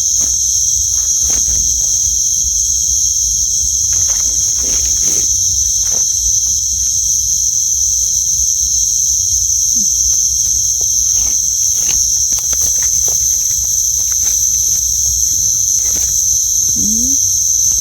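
Night insect chorus: crickets trilling in a steady high shrill, with scattered faint clicks and rustles.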